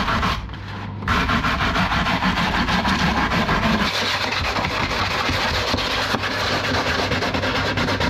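Sandpaper rubbing steadily over plastic interior trim panels. It dips briefly about half a second in, then carries on without a break.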